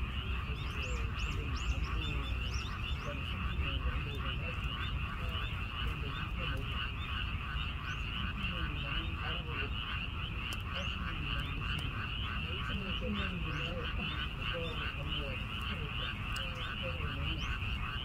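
Chorus of many frogs calling continuously, a dense rapid pulsing of overlapping calls, with scattered lower, falling calls underneath.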